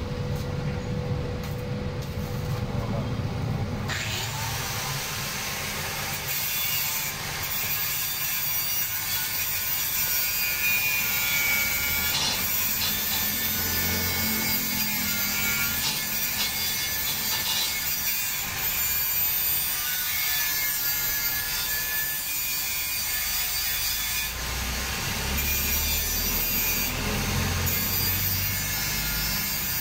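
Angle grinder grinding on the steel sign frame, starting about four seconds in and running on steadily as a loud, hissing grind with a wavering whine.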